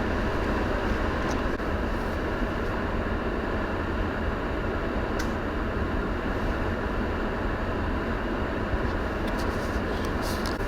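Steady, even rumbling noise of a vehicle travelling through a ground blizzard, mixed with strong wind. A few faint ticks sound near the middle and near the end.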